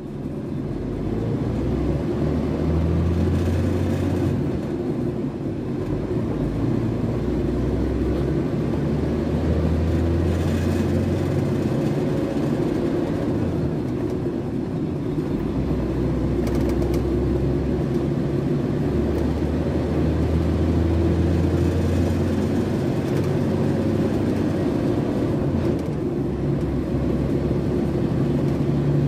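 Scania K380 three-axle coach's rear-mounted diesel engine heard from inside the passenger cabin at cruising speed, a steady drone with road noise. It fades in over the first second, and the deep engine hum strengthens and eases every few seconds as the load changes.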